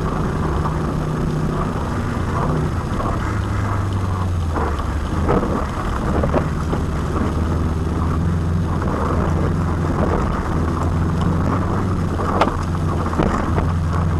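Four-wheel-drive rally car's engine heard from inside the cabin, running hard at speed, its note shifting up and down with gear changes and throttle. Occasional knocks from the car over bumps, the sharpest about twelve seconds in.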